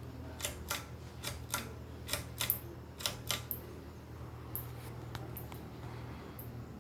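A run of sharp, irregular clicks over a steady low hum: about a dozen clicks in the first three and a half seconds, then a few fainter ones.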